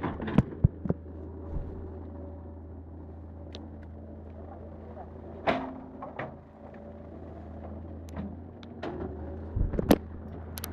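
Footsteps on a dirt hillside path and handling knocks from a handheld camera carried through brush, with leaves and branches brushing past. Sharp knocks cluster at the start, come again about halfway, and there is a loud bunch just before the end, over a steady low hum.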